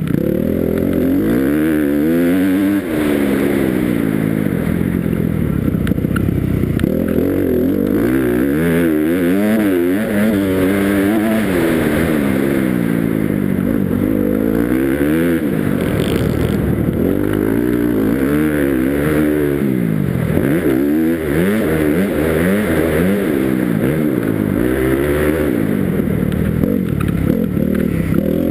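Motocross dirt bike engine revving up and falling away again and again as the rider accelerates and shifts through a lap of a dirt track, heard close from a helmet-mounted camera.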